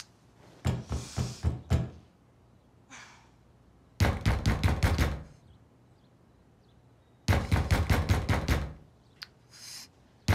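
Knocking on a door in three bouts of quick, repeated raps, about a second, four seconds and seven seconds in.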